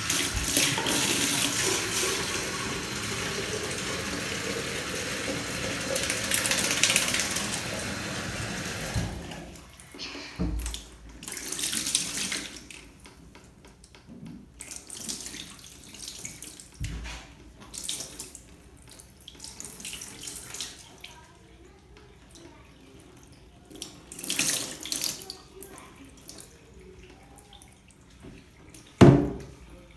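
Bathtub tap running steadily for about nine seconds, then stopping. After that, scattered splashes and pours of water come as a small wet dog is rinsed and scrubbed in the tub, with a short thump near the end.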